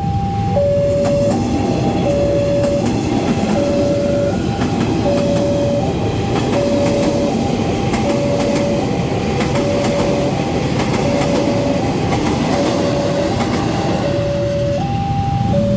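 Railway level-crossing alarm sounding a steady two-tone ding-dong, switching between two notes about every three-quarters of a second, while a KRL electric commuter train passes with its wheels clattering over the rails. The train noise eases near the end, leaving the alarm clearer.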